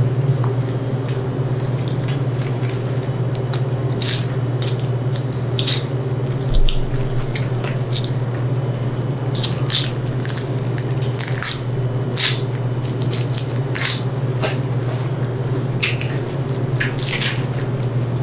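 Boning knife slicing and scraping through a hanging beef hindquarter: irregular short wet cuts and clicks against meat and bone, with one brief thump about six and a half seconds in. A steady low hum runs underneath.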